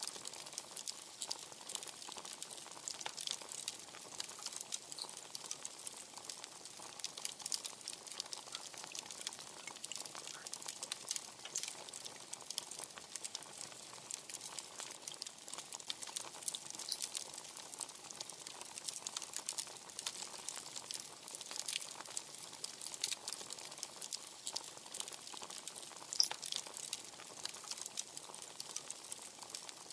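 Wood bonfire crackling steadily: many small sharp snaps and pops over a soft hiss, with one louder pop near the end.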